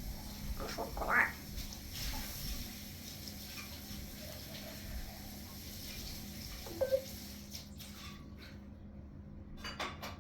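African grey parrot making short vocal sounds: a quick rising call about a second in, then a brief low double call near seven seconds and a short noisy sound near the end.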